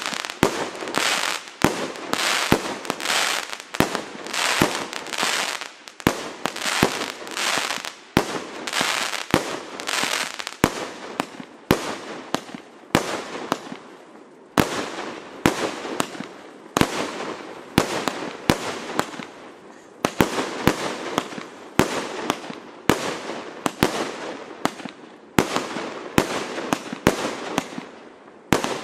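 Klasek Compound C2003SIG 200-shot, 30 mm (1.2") firework cake firing in rapid succession: a steady run of sharp shots, about one to two a second, each trailed by a short crackling burst as the shells break.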